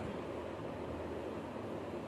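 Steady background hiss: room tone of a recording, with no distinct event.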